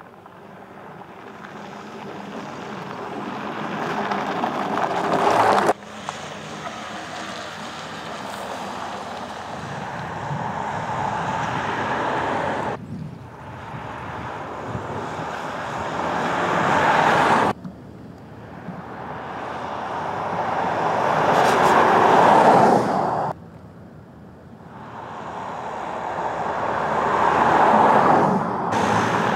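Škoda Kodiaq SUV driving past in a string of separate passes, about five: each time the tyre and engine noise swells as it approaches and then cuts off abruptly at its loudest.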